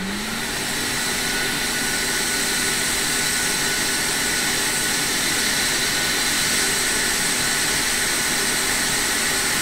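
Hot air rework station blowing, a steady rush of air with a fan hum that rises in pitch as it spins up at the start. It is heating a small three-pin surface-mount temperature sensor on a logic board to desolder it.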